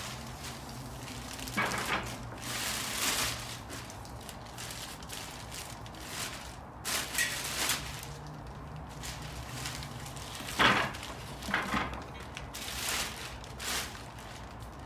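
Packaging being handled while a metal dip attachment is unboxed: intermittent rustling and crackling, with a few sharp knocks, the loudest about two-thirds of the way through.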